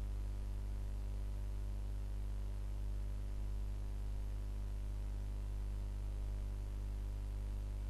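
Steady low electrical hum with a stack of buzzing overtones over a faint hiss, unchanging throughout.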